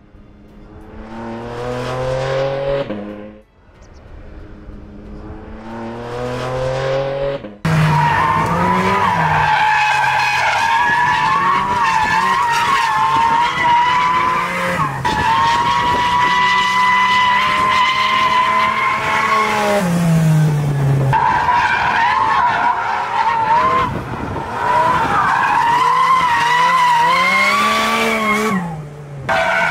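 Porsche 718 Cayman GT4 RS's 4.0-litre flat-six engine revving hard on track, with sustained tyre squeal as the car slides through corners. It starts with two short runs that build and cut off abruptly. About eight seconds in, continuous engine noise and squealing tyres take over, with short dips around twenty seconds and near the end.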